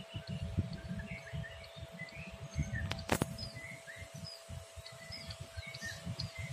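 Outdoor trackside ambience: a gusty low rumble of wind on the microphone, with small birds chirping throughout and a faint steady tone underneath. One sharp click about three seconds in.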